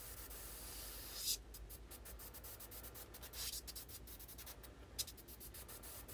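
Airbrush spraying paint in short passes: a faint high hiss that cuts off about a second in, then two brief puffs of spray later.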